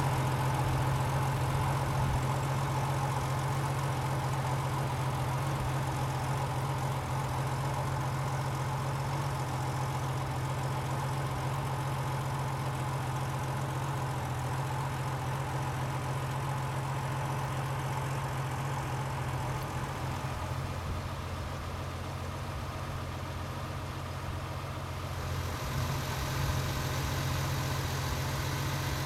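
Porsche 993 Carrera's air-cooled flat-six idling steadily through its exhaust, with no revs.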